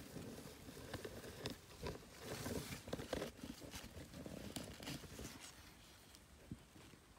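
Rustling of grass and leaves with irregular small clicks and knocks as the phone camera is handled and moved by the bank. It is busiest in the middle seconds and eases off near the end.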